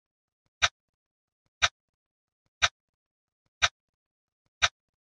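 Countdown timer's tick sound effect: a single sharp clock-like tick every second, one per step of the countdown, five in all.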